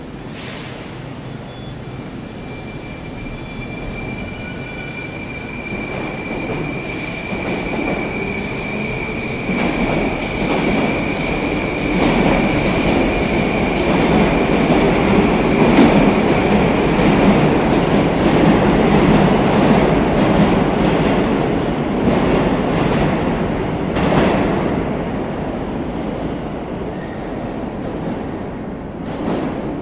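Moscow Metro 81-760/761 "Oka" train pulling out of a station: a steady high whine from its electric drive as it gets moving, and wheel and rail noise building up as the cars run past. A sharp clack comes about two-thirds through, then the noise fades as the tail of the train goes into the tunnel.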